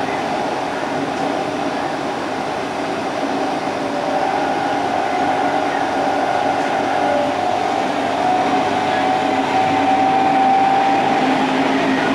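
Odakyu 30000 series EXE Romancecar running, heard from inside its vestibule: a steady rumble of wheels and running gear, with a whine from its VVVF-inverter-driven induction traction motors that rises slowly in pitch as the level builds through the middle. The onboard kiosk refrigerator runs in the background.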